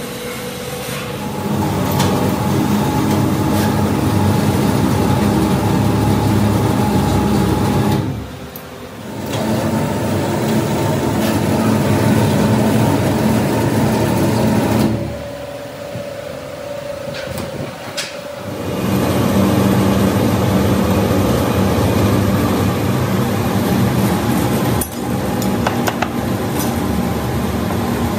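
Hydraulic press's pump motor running steadily while the ram compresses brake-lining mix in a mould. It drops out briefly about eight seconds in and again for a few seconds in the middle, with a few sharp clicks along the way.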